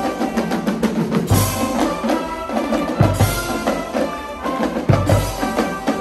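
A Schalmei band playing loud held chords on its Schalmeien, with a bass drum and cymbal crash landing about every two seconds.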